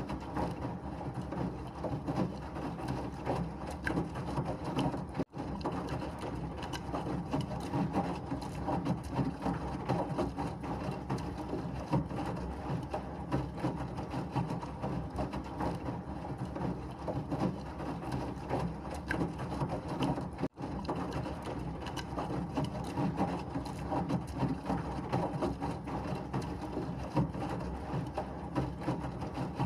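A washing machine running steadily, a continuous churning and rumbling, used as white noise. The sound drops out for an instant twice, about five seconds in and again near twenty seconds.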